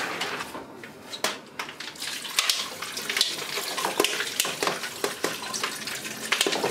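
Palm-nut pulp and water being poured from one steel pot into another and worked by hand, a steady sloshing and splashing of liquid with many short clinks and knocks of the metal pots.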